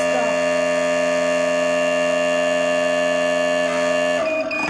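Dental amalgamator mixing a capsule, its motor running with a steady, organ-like multi-tone hum while the timer counts down. About four seconds in it cuts off and winds down, and short beeps mark the end of the mixing cycle.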